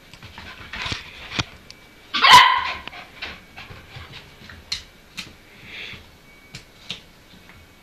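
Kelpie puppy barking at its own reflection in a mirror: one sharp bark about two seconds in, with softer noises and light taps before and after.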